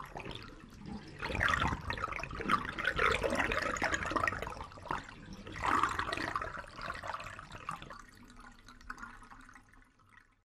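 Rushing, splashing water sound effects in irregular surges, loudest in the first half with another surge about six seconds in, then fading away near the end.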